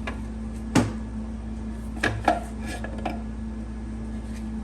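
Metal parts of a 4L60E automatic transmission clinking and knocking together as they are handled during teardown: a sharp clink about a second in, then a quicker pair and a few fainter taps, over a steady background hum.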